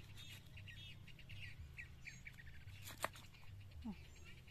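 Small birds chirping in quick, repeated short notes, with a single sharp knock about three seconds in.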